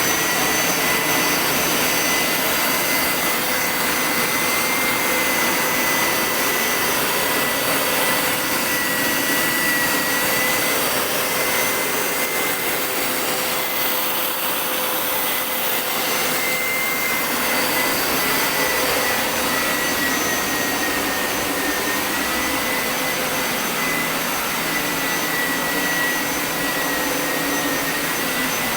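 Carpet-washing machine running steadily as it cleans a carpet: an even suction hiss with a high motor whine that wavers slightly in pitch.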